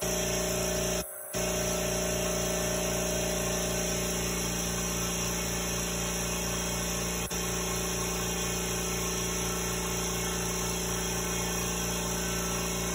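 A John Deere HR1-20q single-cylinder, oil-free air compressor is running steadily, its 1.5 hp electric motor pumping air into the tank and building pressure. It makes an even, extremely quiet hum.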